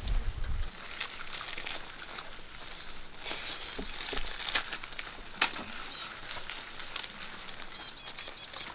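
Clear plastic flower sleeves crinkling and gerbera stems rustling as hands sort and bundle the flowers, in short scattered crackles. A few faint high chirps come twice, about three and a half seconds in and near the end.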